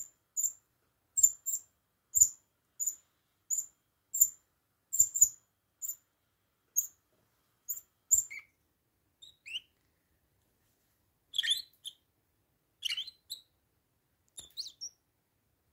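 Bourke's parakeet calling: a steady series of short, high chirps, about one or two a second, then a few lower sliding notes and short bursts of twittering in the second half.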